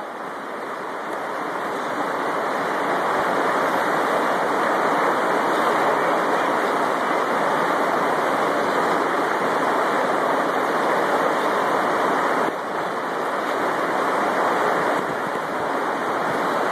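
Whitewater river rapids rushing over rocks: a loud, steady roar of water.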